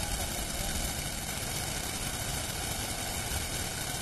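Steady rushing of a fast-flowing river in flood, an even noise with a rumbling low end.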